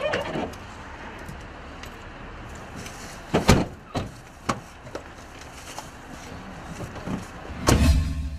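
Car doors and bodywork knocking and thudding as a parked car is searched, over a steady background hum. A loud double thud comes about three and a half seconds in, with lighter knocks after it and a longer, heavier thud near the end.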